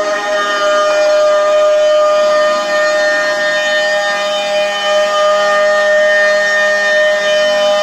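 CNC router spindle running at speed as its bit mills a wooden frame: a loud, steady, high whine of one unchanging pitch with rasping cutting noise underneath.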